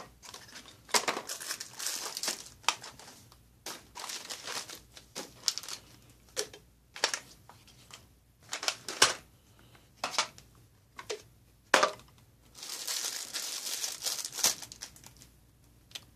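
Crinkling and rustling of XMRE ration pouches, paper and foil packets handled and laid out one by one on a stainless steel tray, in irregular bursts with a few sharper clicks and a longer stretch of crinkling near the end.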